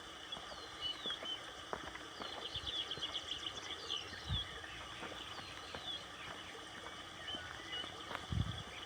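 Several birds singing, with short whistled chirps throughout and a rapid trill about two to three seconds in, over a steady outdoor background. Two low thumps come about four seconds in and near the end.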